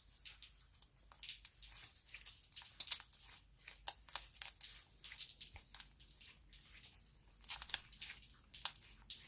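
Soft clay slime being squeezed and pulled apart by hand, giving an irregular run of small crackles and tearing sounds, thickest in clusters about a second in, around four seconds in and near eight seconds in.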